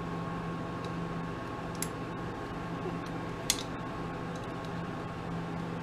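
Mini lathe running with a steady hum, with two light clicks about a second and a half apart.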